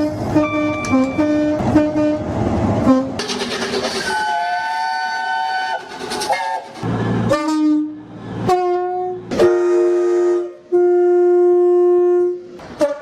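British train air horns sounding in a quick series of separate clips. First come short toots over the rumble of a passing train. Then a longer two-tone blast, a few short blasts, and a long steady single-note horn near the end.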